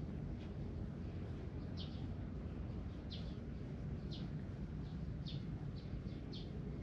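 A small bird chirping, about six short high notes at uneven intervals about a second apart, over a steady low rumble.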